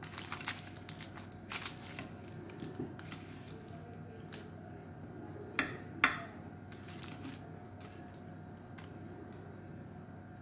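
A knife cutting through a carrot cake in a foil-lined metal baking tray: a run of light clicks and scrapes as the blade meets the foil and tray, with two sharper knocks about halfway through.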